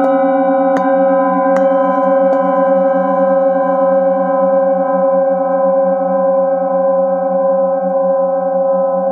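Metal singing bowls ringing together in layered, sustained tones with a pulsing waver in the low notes, as a bowl held in the hand is rubbed around its rim with a wooden mallet. A few light taps are heard in the first two seconds or so.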